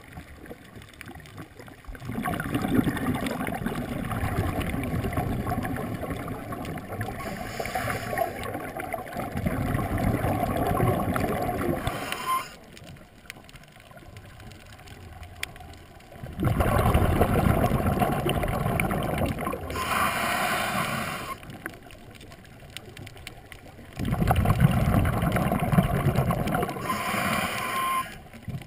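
Scuba diver's exhaled bubbles gurgling from the regulator, heard underwater, in long noisy stretches with quieter pauses between breaths.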